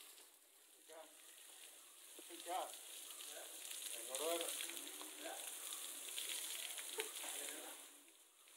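Steady hiss of water spray showering down onto an elephant's head and back, used to cool it; it fades near the end.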